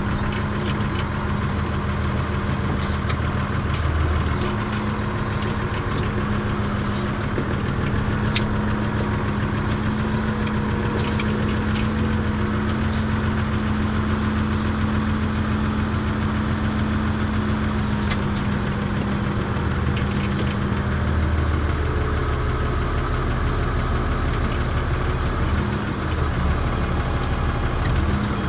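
Renault farm tractor's diesel engine running steadily, heard from inside its cab, with a few light clicks and rattles now and then.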